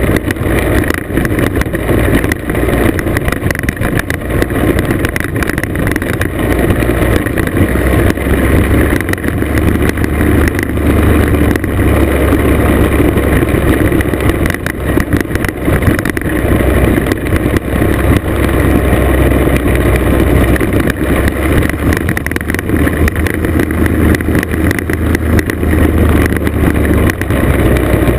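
Classic two-stroke scooter engine running steadily at riding speed, heard from on board over a rough gravel road, with wind buffeting the microphone and rattling jolts from the road surface.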